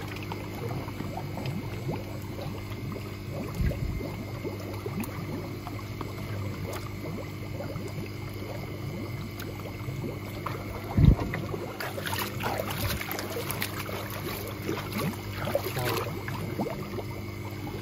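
Water splashing and trickling over a steady motor hum, with a sharp thump about 11 seconds in and a spell of denser splashing near the end.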